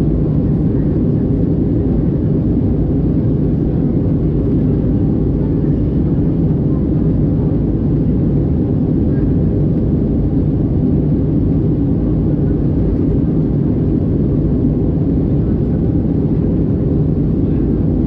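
Steady in-flight cabin noise of an Airbus A320-214 heard from a window seat, a low, even drone of its CFM56 engines and the airflow over the fuselage.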